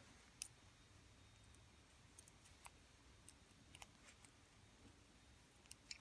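Near silence broken by faint, scattered metal clicks: a thin wiper-blade strip being fitted as a tension tool into the keyway of a small Elgin wafer padlock.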